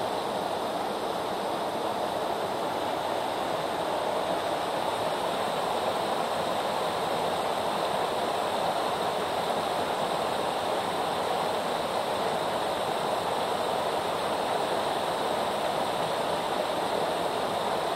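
Creek water running steadily over a small waterfall, an even, unbroken rush of water.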